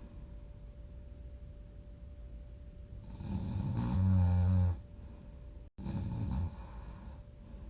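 A person snoring: one long, low snore about three seconds in, then a shorter one about six seconds in. A faint steady hum runs underneath.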